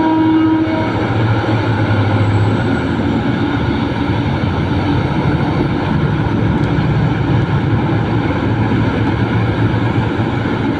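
Large hydraulic mining excavator's diesel engine running steadily, a continuous deep drone.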